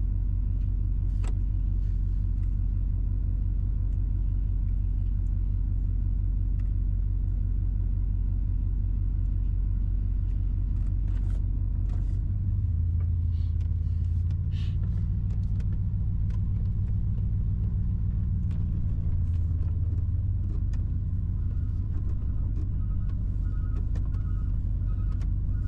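A vehicle engine idling with a steady low rumble; its note changes about twelve seconds in, with a few faint clicks over it.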